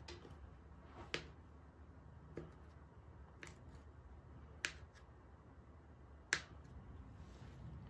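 Kitchen knife cutting through a rolled log of tahini dough and striking the glass work surface beneath it: about six sharp taps spaced roughly a second apart, three of them louder.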